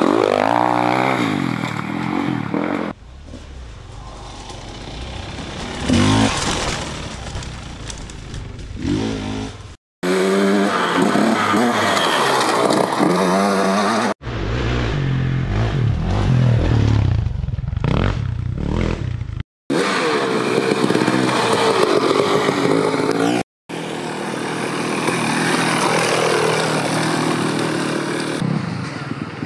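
Off-road dirt bike engines revving, their pitch rising and falling with the throttle, across several short clips that break off abruptly.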